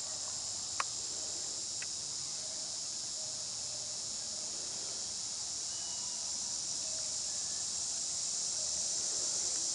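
Steady, unbroken high-pitched chorus of insects, with a single soft click a little under a second in.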